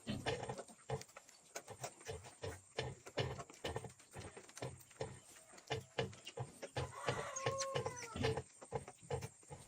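Pigs grunting: repeated short, low grunts mixed with scattered clicks and knocks, and one brief higher-pitched animal call about seven and a half seconds in.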